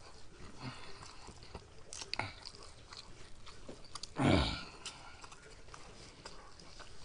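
A person chewing noodles with the mouth closed, with small wet clicks of the mouth. About four seconds in comes one loud breath blown out through pursed lips, as the spicy heat of the noodles builds.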